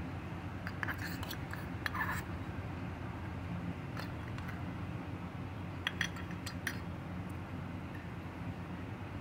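A metal spoon clinking lightly against a small metal pot of rice, a few clinks about a second in and a few more near six seconds, over a steady low background hum.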